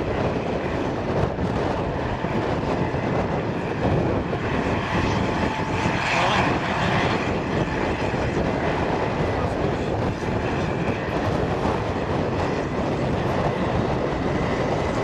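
Heavy diesel tractor engines working hard under ploughing load, a loud, steady drone.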